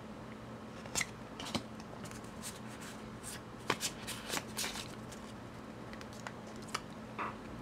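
Pokémon Evolutions booster pack wrapper and trading cards handled and the pack opened by hand: faint, scattered crackles and rustles, thickest in the middle stretch, with a few more toward the end.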